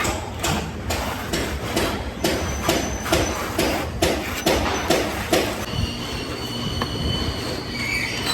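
Steel plastering trowel scraping across a wall in quick strokes, about two a second, then a steady high squeal from the blade for the last few seconds, over a low constant rumble.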